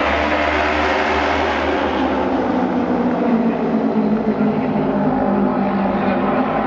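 Auto race motorcycles running at high revs together, several engines droning at once with their pitches shifting slightly.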